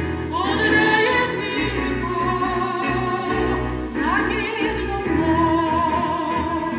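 A woman singing through a microphone in an operatic style with vibrato, over backing music. She sings two phrases, each rising at the start into a long held note, the second beginning about four seconds in.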